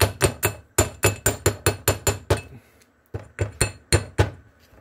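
Ball-peen hammer tapping around a metal-cased seal to drive it flush into the end of a small hydraulic cylinder, steel on steel with a bright ring on each strike. It goes in a quick even run of about six taps a second, stops briefly about halfway through, then gives a few slower taps.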